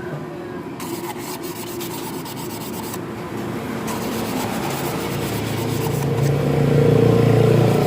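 Fine sandpaper rubbing back and forth on a starter motor part, smoothing away roughness of the kind that made the starter grind. A low rumble grows in the second half and is loudest near the end.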